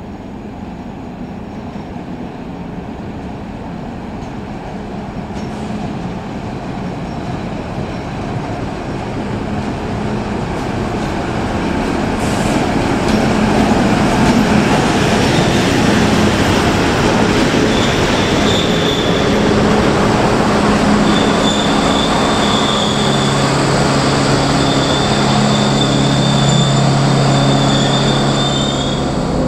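Class 721 diesel-electric locomotive hauling a railcar, approaching and rolling past with its diesel engine running, getting louder over the first half. In the second half a high brake squeal comes and goes several times as the train slows to a stop.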